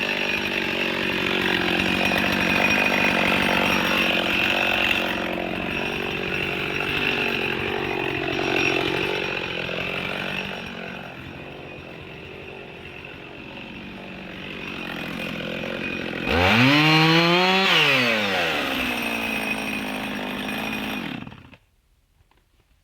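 Husqvarna 55 two-stroke chainsaw running loud under load for about ten seconds, as in a cut through a log, then running more quietly. About sixteen seconds in it is revved sharply once, its pitch rising and falling, and near the end the engine is switched off and stops suddenly.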